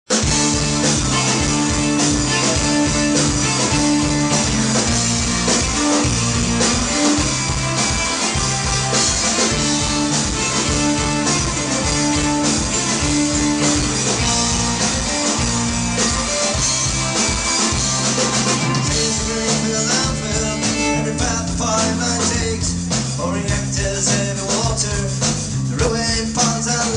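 Folk-punk band playing live through a club PA: drums, guitars and bass, loud and continuous.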